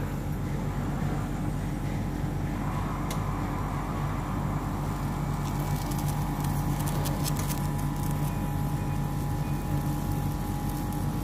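Daikin R32 air-conditioner outdoor unit running with a steady low hum. A faint crackling ticks over it from about six to nine seconds in.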